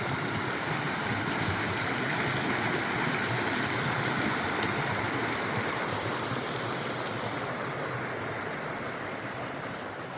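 A creek's water rushing steadily, fading gradually over the last few seconds.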